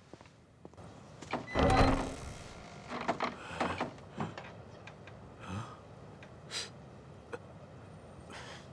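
Old wooden door creaking and knocking as it is shifted open a crack, in several short separate movements. The loudest comes about a second and a half in.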